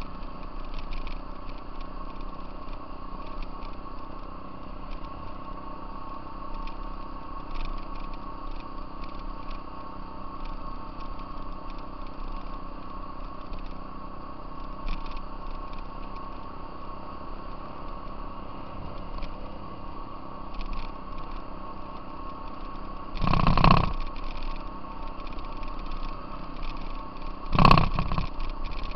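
Off-road vehicle engine running at a steady speed while riding along a gravel trail. Two short, loud bursts of noise cut in near the end, about four seconds apart.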